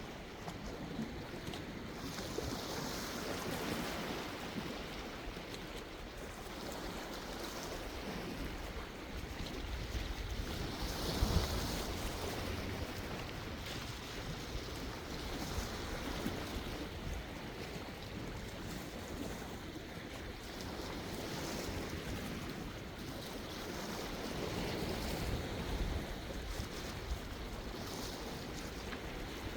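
Sea waves washing onto the shore, rising and falling every few seconds, with a surge about eleven seconds in and some wind buffeting the microphone.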